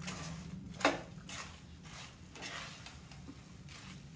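A spoon knocks sharply against the pan once, a little under a second in, then gives several soft scrapes as ground cashews and almonds are tipped in and stirred into the ghee-roasted flour.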